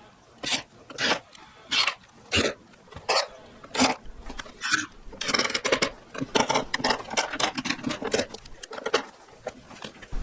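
Hand tools working pallet wood: a run of short, separate scraping strokes about every half second to a second. Around the middle the strokes crowd together into a denser stretch of scraping, then thin out again.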